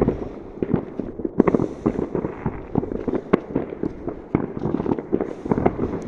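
Many fireworks going off at once across a town: a continual, irregular run of bangs, pops and crackles, some near and sharp, others distant and echoing.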